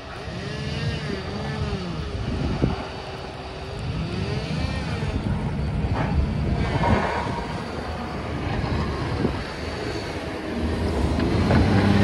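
Snow-removal vehicle engine running, its pitch rising and falling repeatedly as it revs, with a few sharp knocks. The engine grows louder near the end.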